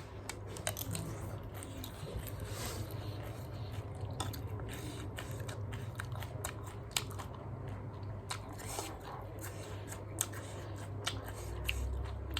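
Cabbage being bitten and chewed, with many irregular crisp crunches.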